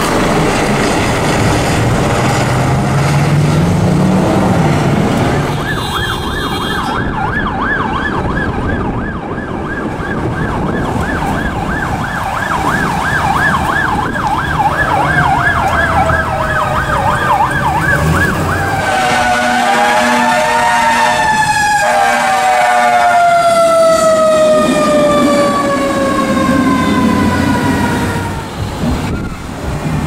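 Emergency vehicle sirens in traffic: engine noise at first, then from about five seconds in a fast warbling yelp siren. After about eighteen seconds a siren rises and winds down in a long falling wail, with a horn blast sounding for a few seconds around the twentieth second.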